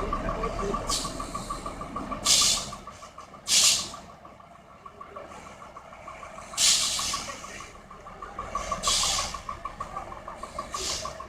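A heavy vehicle's air brakes hiss in short bursts, five or six times, over a low diesel engine rumble that fades after about four seconds. A steady, rapidly pulsing high tone runs underneath.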